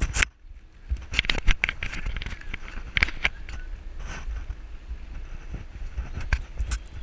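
Wind rumbling on a handlebar-mounted action camera's microphone as the bicycle rolls along, with sharp irregular rattles and knocks from the bike and mount jolting over the pavement, bunched about a second in, around three seconds and near the end. The sound drops out briefly just after the start.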